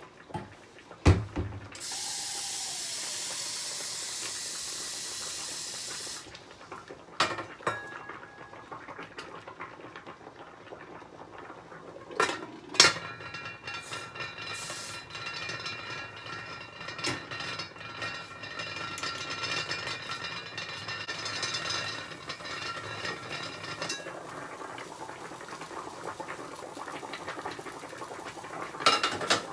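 Aluminium pot of spaghetti boiling on an electric stove: a steady hiss for a few seconds, then sharp metal clanks of the pot lid, and a long stretch of bubbling with several faint ringing tones from the covered pot. Another lid clank comes near the end.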